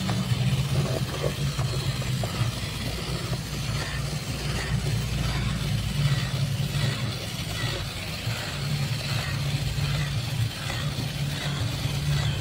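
Small electric motor of a radio-controlled model running steadily with a low hum, dipping briefly a few times.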